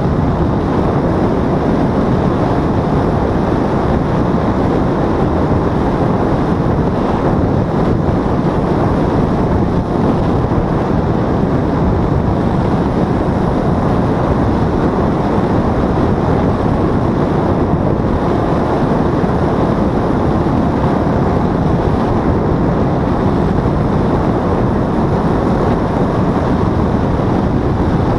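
Paramotor engine and propeller running steadily in flight, with wind buffeting the microphone. A loud, even noise that holds without change in pitch or level.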